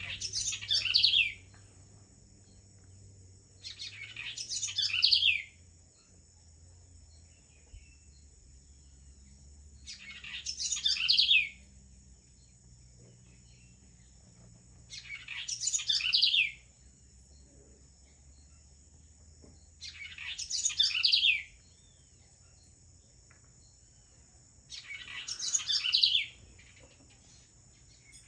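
A songbird singing the same phrase about every five seconds, six times over. Each phrase lasts about a second and a half, swells in loudness and ends in quick falling notes. A faint steady high-pitched drone runs underneath.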